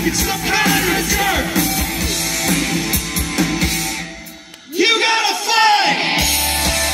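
Live rock band playing with a singer. About four seconds in the music briefly drops away, then comes back with the voice and guitar over lighter bass.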